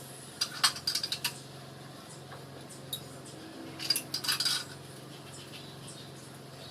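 Manual racket-stringing machine clicking and clinking as a string is tensioned and clamped: a quick run of light metallic clicks about a second in, a single click near three seconds, and another run around four seconds in.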